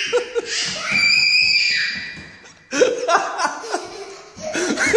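A small child shrieks in a high held pitch, followed by bursts of laughter.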